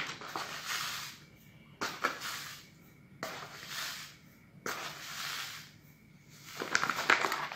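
Spoonfuls of granulated sugar scooped from a paper bag with a metal spoon and tipped into a stainless-steel pot: a run of short rustling, hissing bursts, about one every second and a half.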